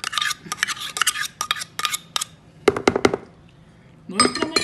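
A metal measuring cup being scraped and knocked to empty thick mayonnaise into the salad bowl: a quick run of metallic scrapes and clinks, then a few harder knocks about three seconds in.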